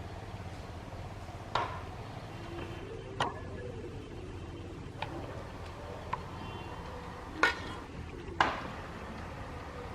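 A metal utensil clinking against a cooking pot while food is stirred, six sharp knocks a second or two apart, some with a brief metallic ring, over a steady low background noise.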